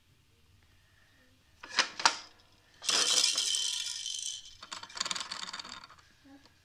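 Fisher-Price toy basketball hoop rattling. Two sharp plastic knocks come about two seconds in, then a rattling clatter lasts about a second and a half, and after a short pause comes a second, shorter rattle.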